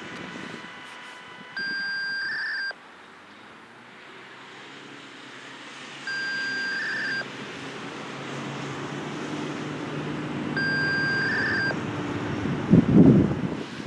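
An electronic alarm sounding a high beep about a second long that ends in a brief warble, repeated every four and a half seconds. Under it a vehicle approaches and passes close by near the end.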